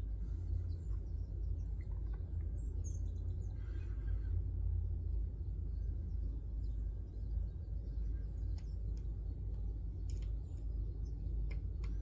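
Sparrows giving a few short, high chirps over a steady low rumble, with scattered sharp ticks in the second half.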